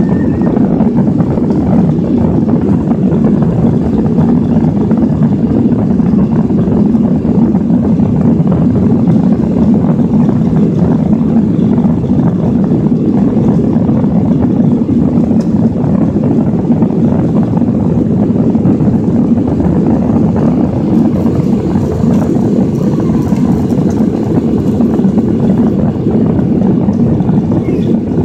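Jet airliner's engines at takeoff power, heard from inside the cabin: a loud, steady, deep engine and rushing-air noise as the plane leaves the runway and climbs.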